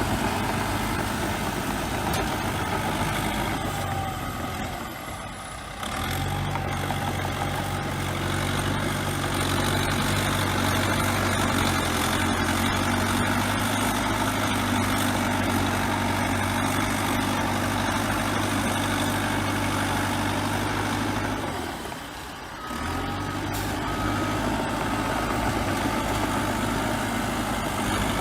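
Bulldozer diesel engine running steadily with a low drone and mechanical clatter, dropping away briefly twice.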